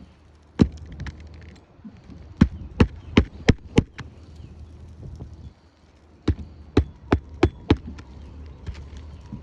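Hammer driving roofing nails through an asphalt shingle: a single strike, then two quick runs of five blows.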